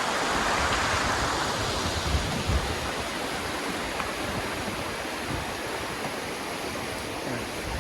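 Steady rush of a fast-flowing stream, a little louder in the first two seconds and then easing slightly.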